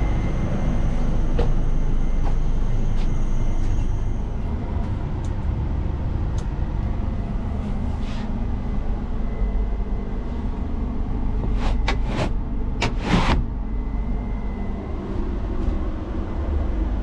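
Steady low rumble of a railway passenger coach, with a few sharp clicks and knocks about two-thirds of the way through.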